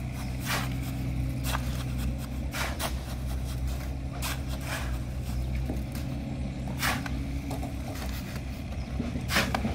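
Long-handled hoes scraping and chopping through a cement, sand and gravel mix on hard ground, a sharp stroke every second or two, over a steady low engine hum.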